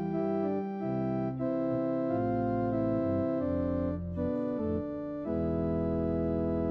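Church organ playing slow sustained chords that change every second or so, then a long held chord beginning about five seconds in.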